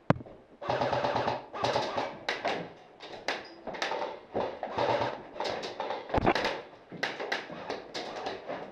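Airsoft rifles firing in a small room, a long burst of full-auto about half a second in, then a string of shorter bursts and single shots. A heavy thump lands about six seconds in.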